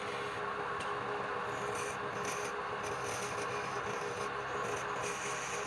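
Lathe running steadily with a motor hum, and a turning tool scraping against the spinning workpiece.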